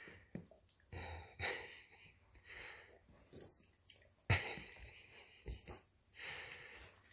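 Baby serval kittens giving short high-pitched chirping mews, a handful of separate calls, with brief soft snuffling and rustling sounds between them as a dog nuzzles them.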